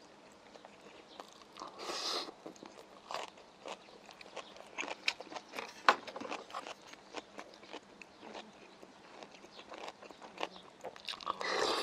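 Close-miked chewing of kimchi and rice: soft wet clicks, smacks and small crunches at irregular intervals. A longer breathy rush comes about two seconds in, and another near the end as a spoonful of hot tofu stew reaches the lips.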